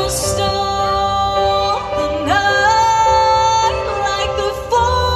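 A woman singing a pop ballad live over a backing track through stage PA speakers: long held notes with vibrato, and an upward slide into a higher held note about two seconds in.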